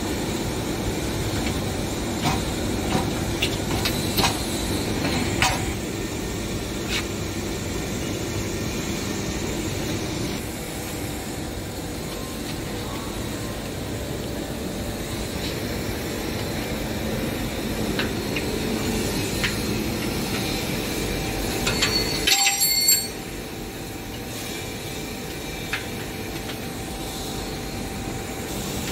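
Steady workshop machinery hum with scattered sharp metallic clinks of hand tools on the diffusion pump's bolts, and a quick cluster of louder clinks late on.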